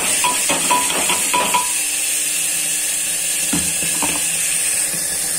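Masala paste sizzling as it goes into hot oil in a pressure cooker. A spoon scrapes and taps against the steel bowl in a quick run of ringing clicks for the first second and a half, and there is one knock about three and a half seconds in.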